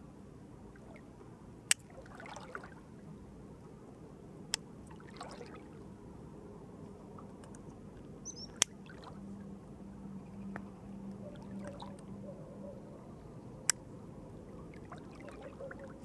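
Tools of a Victorinox Forester Wood Swiss Army knife snapping open and shut against their backsprings: four sharp clicks a few seconds apart, over faint steady background noise.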